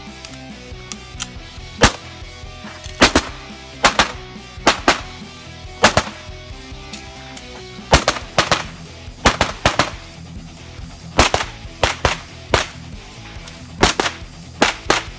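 Pistol shots fired in quick pairs and short strings, about twenty in all with brief pauses between groups, as a shooter engages targets on a practical-shooting stage. Faint background music runs underneath.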